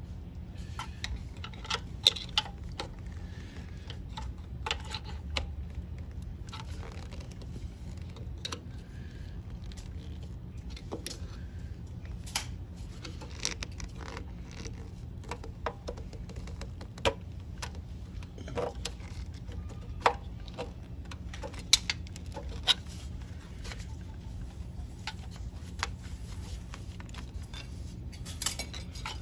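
Scattered small clicks, taps and rubbing from hands twisting and working a rubber carburetor intake hose and its metal clamp loose on a 1968 Honda CT90, over a steady low hum.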